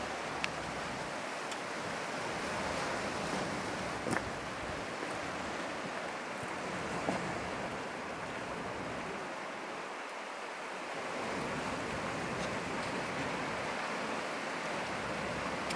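Sea surf washing over rocks, a steady rushing noise, with a few small clicks.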